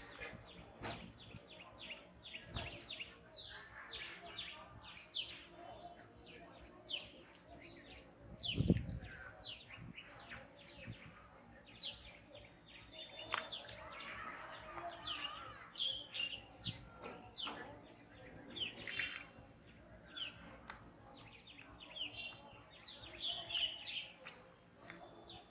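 Birds chirping: many short, quick calls, sliding down in pitch, overlapping throughout, with a single low thump about nine seconds in.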